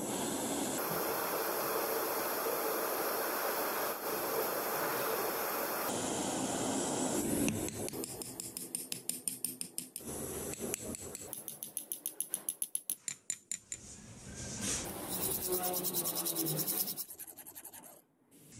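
Gas blowtorch flame hissing steadily on a thin spring-steel rod. Then two runs of quick, light hammer blows on a small steel anvil, about four or five a second, flattening the red-hot tip into a chisel blade.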